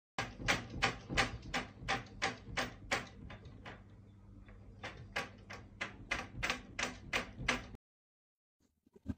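Wardrobe doors rattling and knocking in their frames in a rapid, even rhythm of about three to four knocks a second, shaken by an earthquake. The knocking eases for a couple of seconds in the middle, picks up again, then cuts off suddenly.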